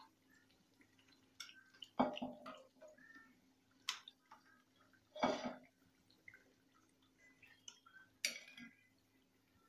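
A metal spoon knocking and scraping against a frying kadai and a ceramic plate as fried potato bajjis are lifted out of the oil: a handful of separate clinks, the loudest about two and five seconds in, over a faint low hum.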